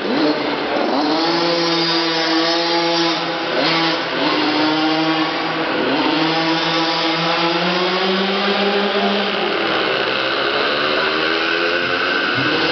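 Small 50cc youth racing motorcycle engines revving hard on a dirt track inside an arena hall. The pitch drops sharply several times as the throttle is shut for the corners, then climbs again down the straights.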